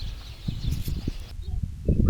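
Wind buffeting the microphone in an irregular low rumble, with faint bird sounds; the higher hiss cuts off abruptly about a second and a half in.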